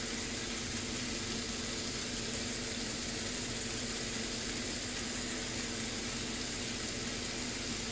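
Tilapia fillets sizzling steadily on a hot George Foreman contact grill, an even hiss with a low steady hum underneath.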